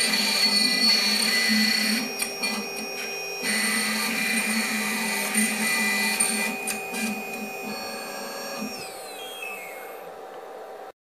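0.8 kW Chinese spindle on a Shapeoko 3 CNC router whining steadily at 24,000 rpm while its end mill cuts through thin wood, the stepper motors moving the machine along the path. Near the end the cutting noise stops and the spindle's whine falls in pitch as it spins down, until the sound cuts off.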